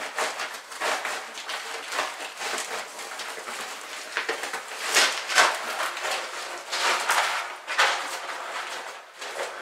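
Irregular scraping and rustling as a coiled rag is worked out of a drain opening in a concrete slab, cloth and grit rubbing on the concrete, with a few sharper scrapes about halfway through and near the end.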